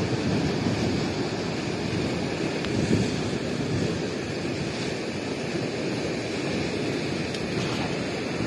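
Fast, turbulent river water rushing and churning in a steady roar of foaming white water.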